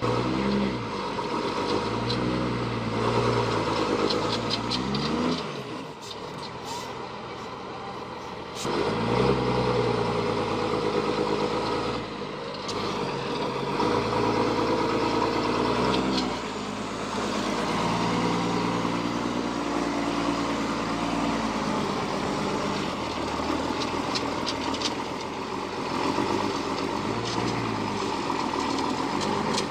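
Heavy truck diesel engine revving up and easing off several times, its pitch climbing and falling, with a quieter lull about six seconds in.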